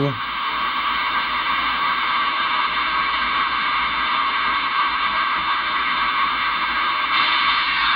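Steady receiver static hissing from a Voyager VR-158EGTL-DX CB radio's speaker, with no station talking. A little before the end the hiss turns slightly brighter as the radio's receive audio filter is switched off.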